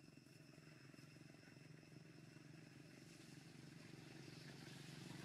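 Faint low engine hum that slowly grows louder, like a motor vehicle approaching, with faint steady high-pitched tones above it.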